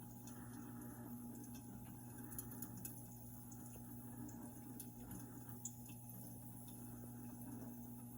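Kettle popcorn machine running: its stirring motor gives a steady low hum, with scattered faint pops as the kernels start to pop.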